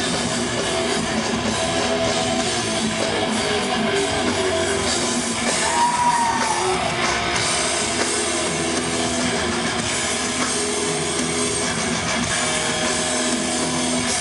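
Heavy rock band playing live: electric guitars and a drum kit, recorded from within the concert crowd.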